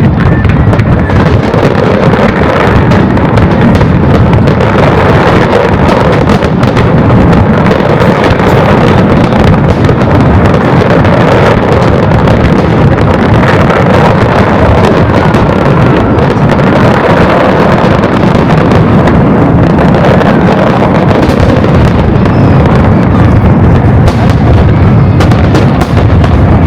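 Aerial fireworks exploding in a dense, nonstop barrage, very loud, the blasts overlapping with no pause between them.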